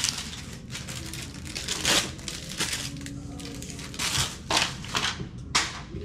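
Thin clear plastic wrapper crinkling and rustling as it is handled, in several short bursts.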